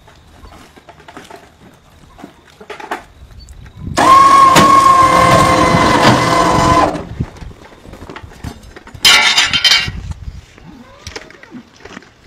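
A machine runs with a loud, steady, high whine for about three seconds, starting about four seconds in, over rattling noise. A shorter, harsher burst follows about two seconds after it stops.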